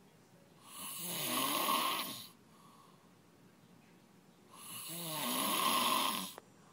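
A sleeping man snoring loud: two long snores of nearly two seconds each, a couple of seconds apart, with quiet between.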